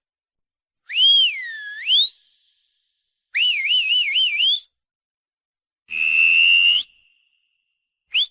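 A run of separate whistles with short silences between them. First comes a swoop that dips down and comes back up, then a warbling trill that climbs, then a held note that rises at the end, and last a brief rising chirp.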